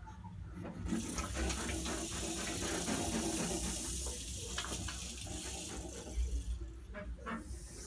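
Porcupine quills rattling in a steady hiss that starts about a second in and stops shortly before the end, with scattered clicks from the animals moving and feeding.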